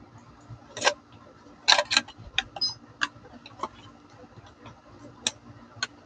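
Metal canteen with its nesting cup and stove knocking and clicking as it is packed into its cloth carry bag: a few irregular light metal clicks and knocks, the loudest about a second in and just before two seconds.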